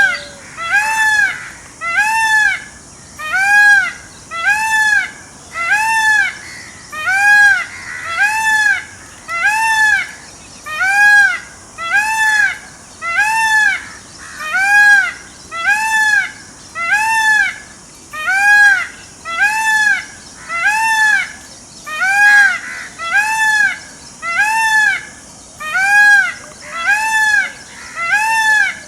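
Peacock calling over and over: short, high cries, each rising then falling in pitch, repeated evenly about once every 1.2 seconds.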